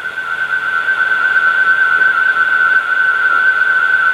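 A steady, high-pitched whistling tone, wavering slightly, over a background hiss.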